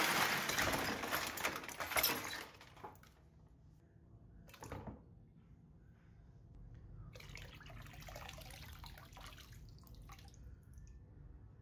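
Rusty sewing-machine parts tipped from a metal tray into a plastic tub of water, clattering and splashing for about two and a half seconds. Later a stream of water pours into the tub for a few seconds.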